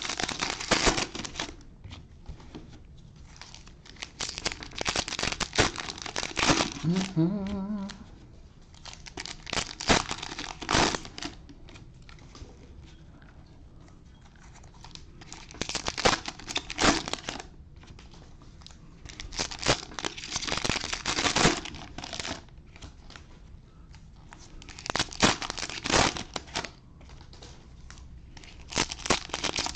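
Cellophane trading-card pack wrappers being crinkled and torn open by hand, in bursts every few seconds, with quieter handling of the cards in between.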